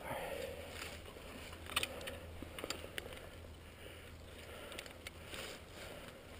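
Faint rustling and crackling with a few sharp clicks, the loudest about two seconds in, over a steady low hum.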